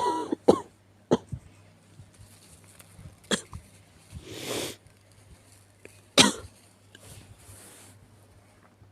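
A sick person coughing: a quick run of harsh coughs at the start, then single coughs about three and about six seconds in, with a long noisy breath between them.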